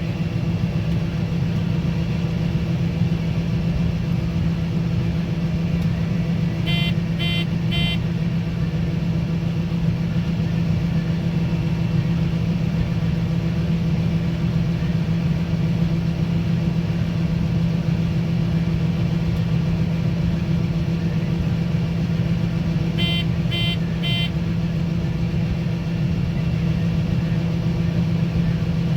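Combine harvester's diesel engine running steadily with a constant hum. Three quick electronic beeps sound about seven seconds in, and again about twenty-three seconds in.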